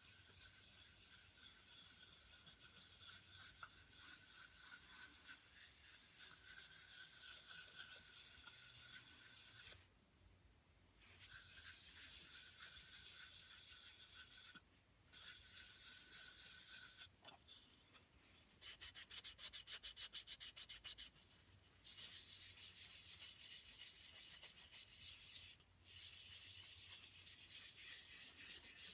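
Faint, steady scrubbing of Odie's oil being buffed by hand into wooden river coasters, broken by a few short gaps.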